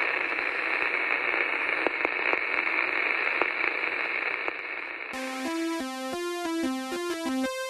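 Television static hiss with a few crackles, giving way about five seconds in to an electronic synthesizer tune of quick, evenly stepping notes.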